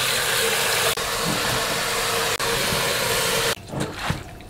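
Tap water gushing steadily into a stainless steel basin while salted winter cabbage is swished and rinsed by hand, the flow carrying a constant tone. The water cuts off suddenly about three and a half seconds in, leaving soft wet rustles as the rinsed leaves go into a plastic colander.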